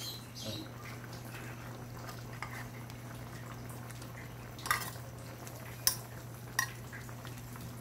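Metal spoon scraping liver spread from a tin can and clinking three times against the can and the aluminium wok in the second half, over a steady low hum and the stew simmering.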